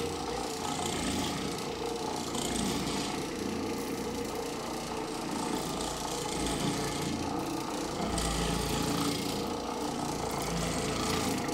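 Oreck Orbiter orbital floor machine running steadily, its motor driving the pad as it is pushed across the carpet.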